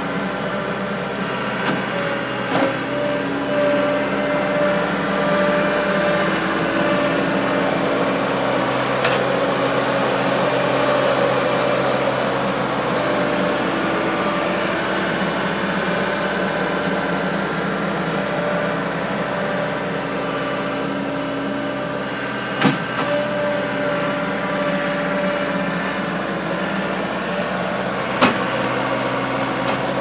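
A 1980 Case 1845 Uni-loader skid steer's engine runs steadily while the machine works. A higher whine comes and goes several times over it, and a few sharp clanks ring out, the loudest two near the end.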